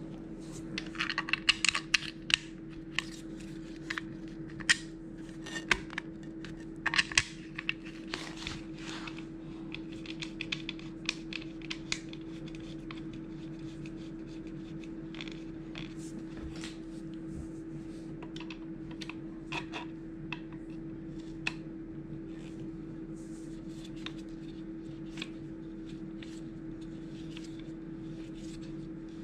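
Clicks and light knocks of an inline skate's plastic frame, wheels and axle parts being handled and fitted together, dense in the first dozen seconds and sparser after, over a steady low hum.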